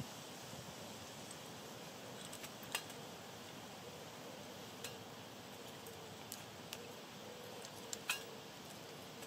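Sticks being fed into a small folding metal wood-burning twig stove with a fire going in it: a few sharp clicks and light knocks of wood on the metal and in the fire, over a faint steady background.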